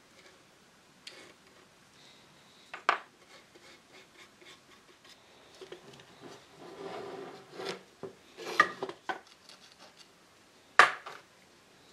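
Steel bar clamps being handled and set against a wooden frame on a workbench: sharp metal-and-wood knocks about 3 seconds in, several around 8 to 9 seconds and the loudest about 11 seconds in, with a stretch of rubbing and scraping between them.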